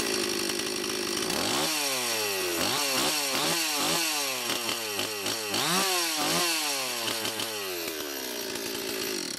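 Stihl 026 chainsaw's two-stroke engine, freshly rebuilt with a new Walbro carburetor kit and just tuned on its high and low mixture screws, running without bar and chain. It idles, is revved up and down in quick blips, drops back to idle and cuts off abruptly at the very end.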